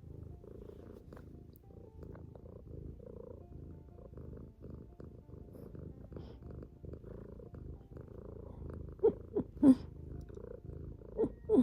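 Domestic cat purring steadily close to the microphone, a continuous low rumble, with a few short, louder pitched sounds near the end.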